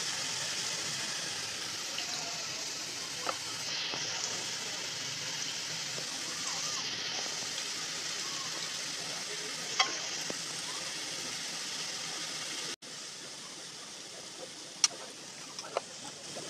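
Boondi (gram-flour batter drops) deep-frying in hot oil in a steel kadai, a steady sizzle. The sizzle drops quieter about thirteen seconds in, and a few sharp clicks come near the end.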